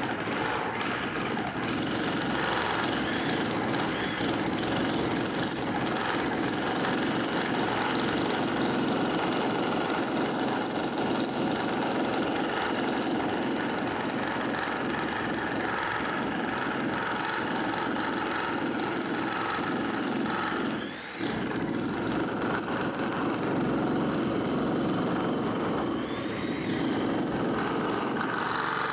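A motor-driven machine running steadily and loudly, with one short drop in level about 21 seconds in.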